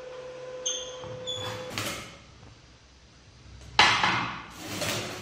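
Heavy steel parts being handled on a metal workbench: two short ringing metallic clinks early on, then a loud clunk with a scrape about four seconds in and a softer scraping clunk a second later as the electric motor on its hinged steel mounting plate is set down and shifted.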